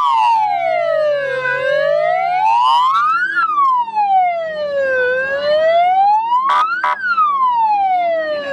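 Wail siren of a Russian fire-rescue motorcycle, its pitch sliding slowly up and down in a smooth rise and fall about every three and a half seconds. A couple of short clicks come about two-thirds of the way through.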